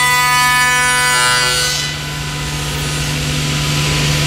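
Thermwood Model 53 CNC router running, a steady whine of several high pitches over a low hum. The whine fades about two seconds in, leaving a rushing noise.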